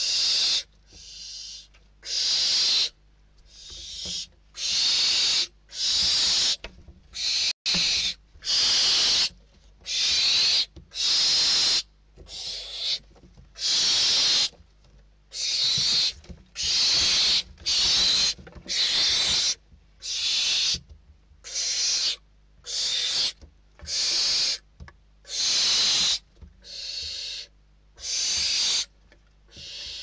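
Barn owl chicks giving their hissing, snore-like begging calls: harsh hisses about once a second, one after another, from several hungry chicks calling over one another.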